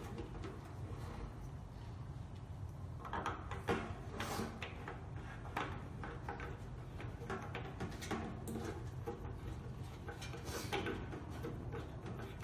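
Irregular light clicks, knocks and short rubbing scrapes of small fittings being handled as a tap is fitted onto a sink, over a steady low hum.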